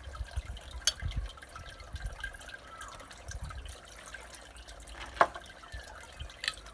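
Vodka pouring from a bottle into a metal jigger and tipped into a shaker glass of ice, with liquid trickling and a few light clinks. A sharp knock about five seconds in is the loudest sound.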